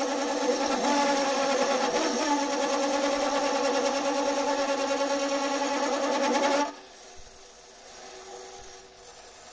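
WEISAN WM210F400 bench metal lathe running steadily at around 300 rpm, an even mechanical whine of its motor and spindle drive. The sound drops away abruptly about two-thirds of the way in.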